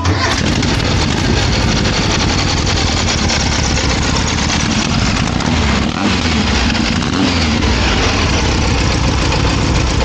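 A loud engine running close up, with a rough, rapid firing throughout.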